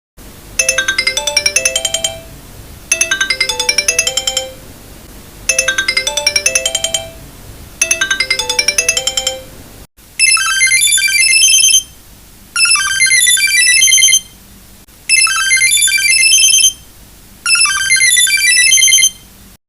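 Sony Ericsson MIDI ringtone: a short electronic melody phrase repeating about every two and a half seconds. About ten seconds in it cuts briefly and returns as a brighter, higher-pitched rendering that repeats four more times.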